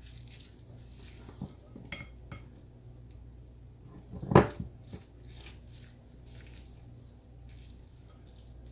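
A kitchen utensil mixing a thick cream-cheese wonton filling in a bowl, scraping and lightly clinking against the bowl. About four and a half seconds in there is one sharp knock against the bowl.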